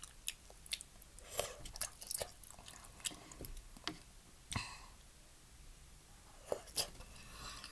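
Close-up mouth sounds of chewing udon noodles and seaweed: soft wet smacks and clicks at irregular intervals, with a lull of about a second and a half near the middle.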